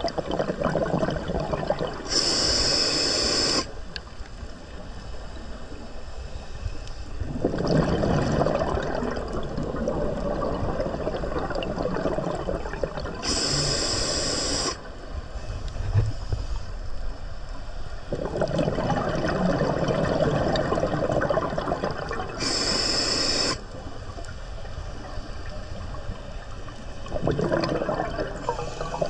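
Scuba diver breathing through a regulator underwater. Three inhales, each a short hiss of about a second and a half, come roughly ten seconds apart. Each is followed a few seconds later by a long rush of exhaled bubbles.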